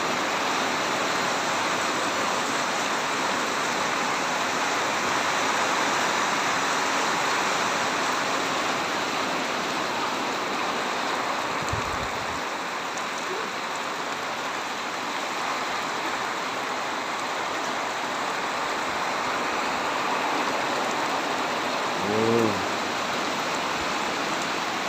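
Heavy tropical downpour falling steadily, an even, dense hiss of rain. A low thud comes about halfway through, and a short voice-like sound near the end.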